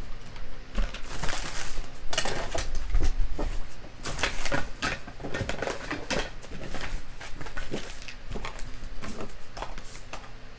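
Hands and tools rummaging among small objects in search of a dropped lock part: irregular rustling, scraping and quick clicks and taps.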